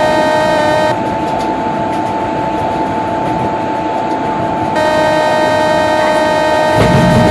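Train horn held in one long chord, one of its tones dropping out for a few seconds in the middle; near the end the rumble and wheel clicks of the moving train come in under it.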